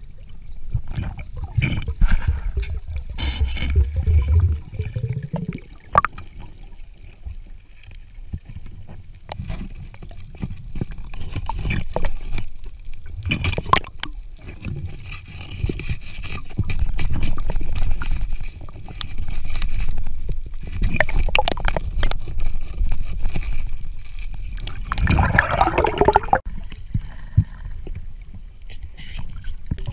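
Underwater sound of a diver working at a rocky seabed: a constant low rumble of water moving against the camera, with many scattered knocks and scrapes and gurgling bursts, the strongest near the end.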